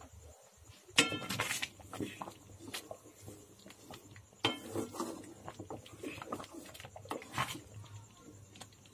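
Spatula stirring and scraping through thick milky kheer in a metal pan, with irregular knocks and scrapes against the pan. The loudest comes about a second in, with others about halfway and near the end.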